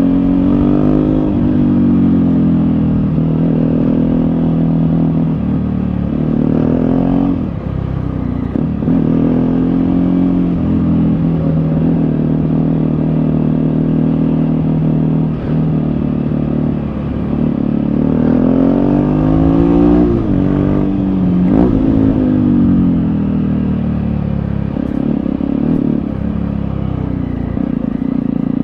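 Jawa 42's single-cylinder engine heard from the rider's seat, pulling up through the revs and dropping sharply at each gear change, several times over. Near the end it winds down to a lower, steadier note.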